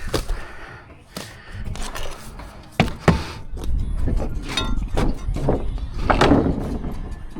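Irregular knocks and thuds of hand work on a building site, with two sharp strikes close together about three seconds in.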